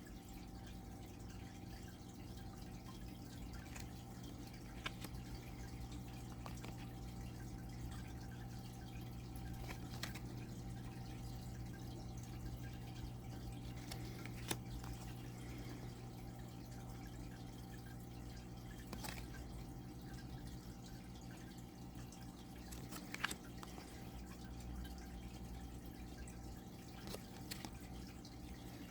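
Faint, sparse clicks of thick cardstock cards being handled and laid down, roughly one every four or five seconds, over a steady low hum.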